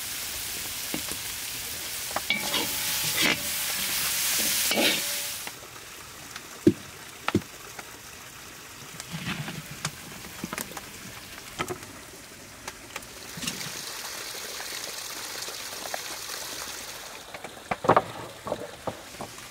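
Food sizzling in hot oil in a pot, loudest for the first five seconds and swelling again later, with scattered sharp knocks and scrapes of a utensil stirring it and a cluster of knocks near the end.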